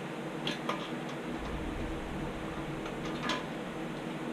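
A few short, sharp metallic clicks of tools or engine parts being handled during engine assembly, one near the start, another shortly after, and a louder one about three seconds in, over a steady background hum.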